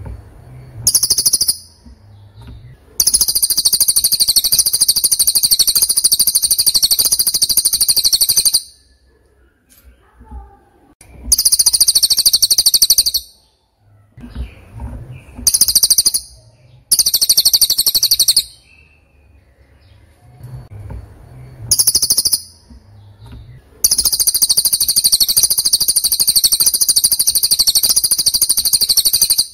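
A bird's very high-pitched, rapid trilling song, given in repeated bouts from under a second to about six seconds long, with short pauses between them.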